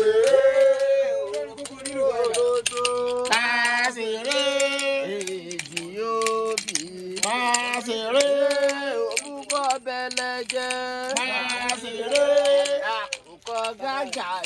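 Singing or chanting voices in long held notes that slide between pitches, with frequent sharp clicks and rattles over them.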